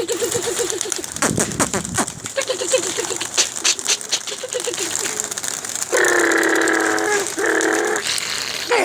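A flock of domestic pigeons in flight, wings clapping and flapping in quick repeated rustles, with short pulsed calls in the first few seconds. From about six seconds in, a long whining call sounds twice.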